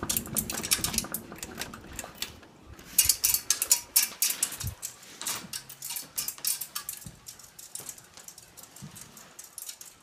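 Hunter Silent Breeze ceiling fan with a schoolhouse light kit rattling and clinking in quick, irregular clicks as it spins down after being switched off from high speed. The clicks come thick at first and thin out near the end. The rattle comes from the fan's heavy wobble.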